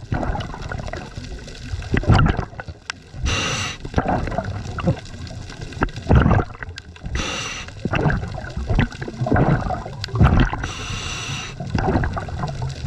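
Scuba diver breathing through a regulator underwater. There are three short hissing inhales, about every four seconds, and gurgling bursts of exhaled bubbles between them.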